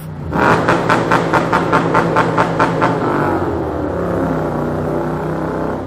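Honda NC700's parallel-twin engine revving through a baffle-less Blackwidow full exhaust in a tunnel, pulsing rhythmically about five times a second for some three seconds before settling into a steadier run.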